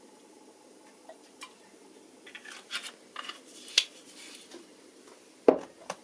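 Rapeseed oil crackling and spitting in a frying pan heating on a gas stove, scattered pops for a couple of seconds, then a single loud knock near the end.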